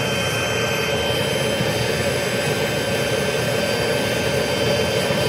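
A steady machine drone with a faint high whine, unchanging throughout.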